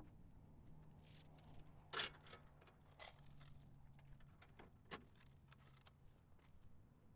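Faint, scattered clinks and knocks of metal being handled at a backhoe bucket, the loudest about two seconds in, over a faint low hum.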